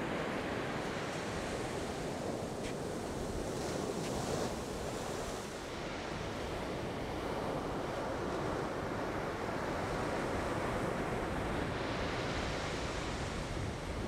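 Ocean surf breaking and washing on a sandy beach: a steady rushing noise, with some wind on the microphone.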